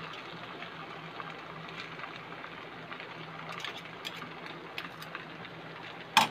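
Steel spoons stirring and tossing noodles in a nonstick wok: faint scrapes and light ticks over a steady hiss, with one sharp clink of spoon on pan near the end.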